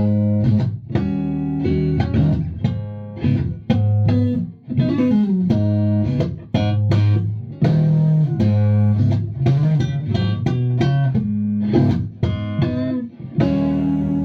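Stratocaster-style electric guitar played through a PRS amp head and a PRS HDRX 4x12 cabinet: picked single notes and chords with short pauses between phrases and some bent notes, ending on a held chord.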